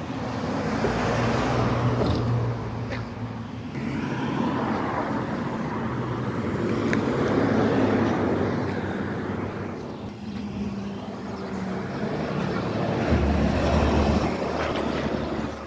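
Street traffic passing close by: vehicles go by one after another, their engines and tyres swelling and fading about three times. A small school bus passes about eight seconds in.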